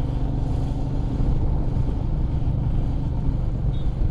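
Royal Enfield Meteor 350's single-cylinder engine running steadily under way, heard over a low, even rumble.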